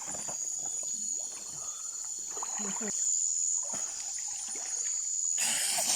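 Steady high-pitched night insect chorus of crickets over trickling water, with faint distant voices. A short rush of noise comes near the end.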